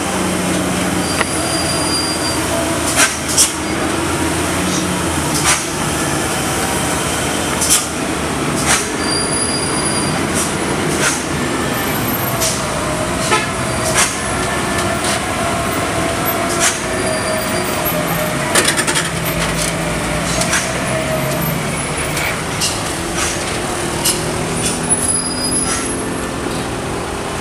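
Mitsubishi Fuso dump truck's diesel engine labouring steadily in low gear as the heavily loaded truck crawls round a tight hairpin bend. Many sharp clicks or knocks come over it, with a drawn-out squeal near the middle.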